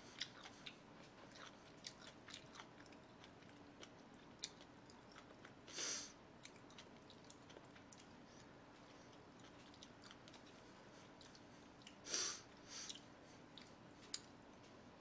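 A person chewing and eating quietly, with faint scattered mouth clicks. Short breathy bursts stand out about six and twelve seconds in.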